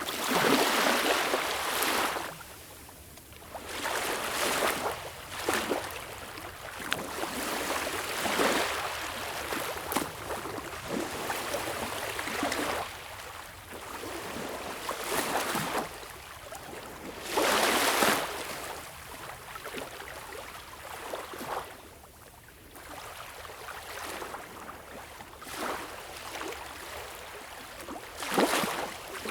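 Small waves washing in and lapping on a beach, each swell of water hiss rising and falling every few seconds, the biggest ones breaking right at the start, about halfway through and near the end.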